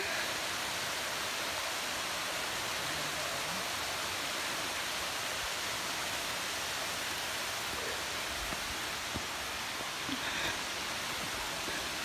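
Small woodland cascades of a mountain stream spilling over mossy rocks into a pool, a steady rush of falling water. A few faint knocks about two-thirds of the way through.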